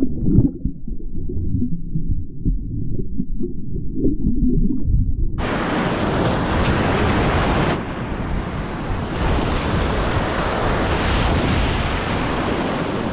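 Surf heard underwater as a muffled low rumble for about five seconds, then, cutting in suddenly, breaking waves and foamy shore wash with wind buffeting the microphone.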